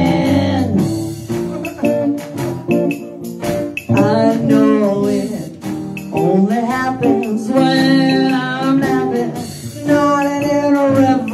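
Live band music: singing over guitar, with a steady beat of percussion.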